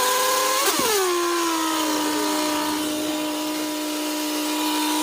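A siren tone rising slowly in pitch. About two-thirds of a second in there is a click, and the pitch drops quickly to a lower tone that then holds steady.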